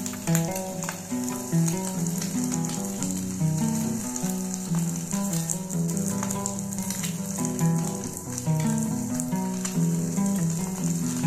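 A fried egg and a haggis slice sizzling in hot oil in a non-stick frying pan: a steady high hiss with small crackles and pops throughout. Soft background music with a plucked melody plays underneath.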